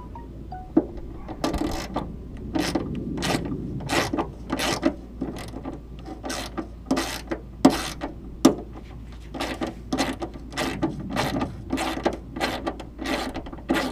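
Hand ratchet with a 10 mm socket clicking in quick rasping strokes, about two a second, as fender bolts are loosened.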